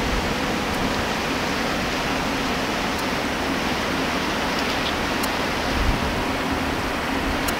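The Great Lakes freighter Lee A. Tregurtha passing close by through broken ice: a steady rushing noise of water and ice along the hull, with a faint low hum from the ship's machinery.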